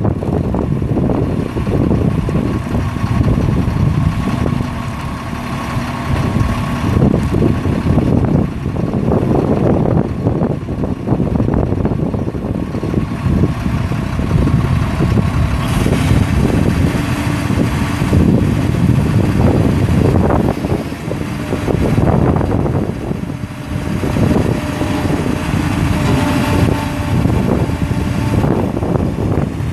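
Caterpillar 3116 six-cylinder turbo diesel engine of a 1991 Chevrolet Kodiak truck idling steadily.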